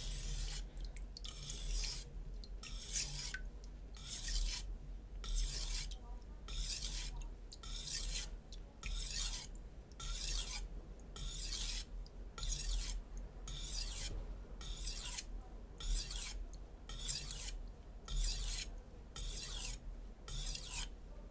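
Shun Classic chef's knife edge being stropped on a wet Naniwa Super Stone 400-grit whetstone: a steady series of about twenty light, rasping strokes, roughly one a second, each a short scrape of steel on stone with a brief pause between.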